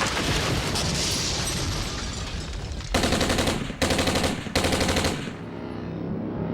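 Battle sound effects: a loud, dense rumbling din, then three short bursts of rapid machine-gun fire, each under a second, about three seconds in. After the last burst it drops to a quieter steady drone.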